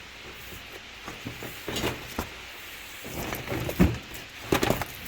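Rear window garnish trim pieces being picked up and sorted: scattered handling knocks and clatter, busiest near the end.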